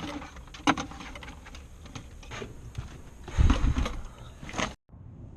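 Scattered clicks and knocks of parts and tools being handled, with a louder rumbling knock about three and a half seconds in. The sound cuts off abruptly near the end, leaving a faint steady hum.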